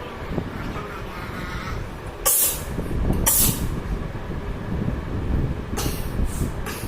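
Two sharp sneezes about a second apart, brought on by tickling the nose with a cotton earbud, followed by a few fainter breathy bursts near the end, over a low rumble on the microphone.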